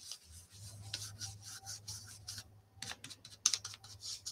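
Ink-blending brush rubbed and dabbed over paper, a soft scratchy swishing in many quick strokes that come thicker in the second half, as ink is blended onto die-cut paper flowers.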